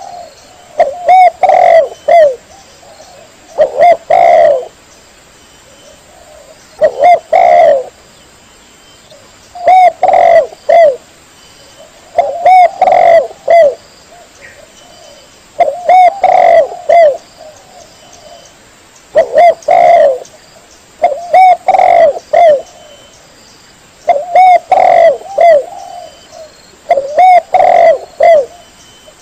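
Spotted dove (tekukur) cooing over and over, a bird-call master recording for luring. Each burst is a group of several short coos, and the bursts repeat about every three seconds.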